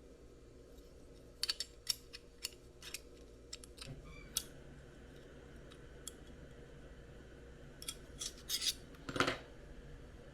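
Scattered light clicks and taps of small plastic RC parts and wires being handled and pressed into place by hand, in two clusters, with the loudest click near the end.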